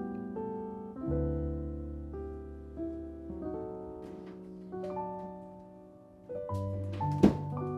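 Soft, slow solo piano music, notes ringing and fading one after another. A sharp click about seven seconds in is the loudest moment.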